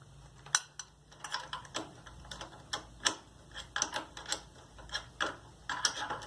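Ratchet wrench clicking in short, irregular strokes while turning a nut on the scooter's exhaust mounting.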